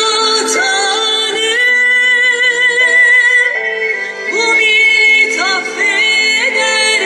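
Music with a sung melody of long held notes, loud and continuous.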